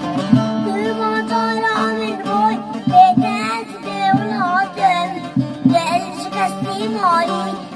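A song: a solo voice singing a slow, ornamented melody with wavering, bending notes over a plucked string instrument accompaniment with regular strokes.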